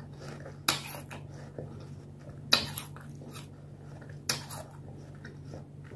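A person chewing food with her mouth closed, with three short sharp mouth-and-nose noises about two seconds apart over a steady low room hum.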